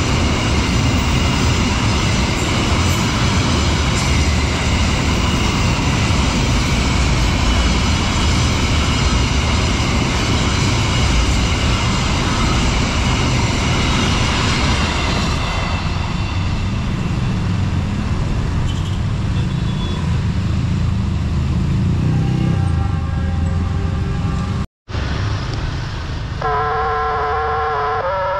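A train running through a railway level crossing with a heavy, steady rumble, steady tones ringing faintly above it. After a sudden cut near the end, the crossing's electronic warning siren sounds alone: a low, sagging tone that sounds weak and comical.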